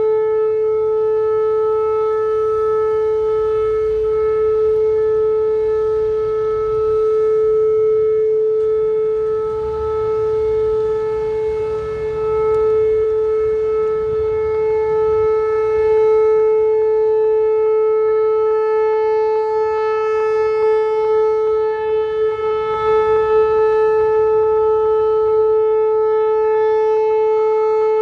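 Outdoor tornado warning siren sounding a steady tone during its weekly test. It holds one pitch with a stack of overtones and no rise or fall.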